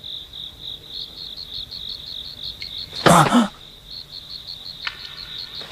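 Crickets chirping steadily in a high, even pulse of about five chirps a second. About three seconds in, a character lets out a short, loud vocal exclamation.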